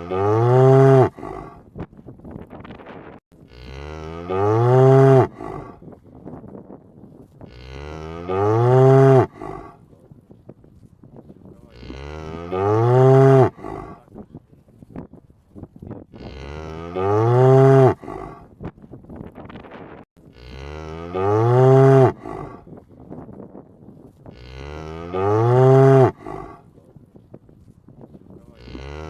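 A cow mooing: the same drawn-out moo repeats about every four seconds, each call rising and then falling in pitch.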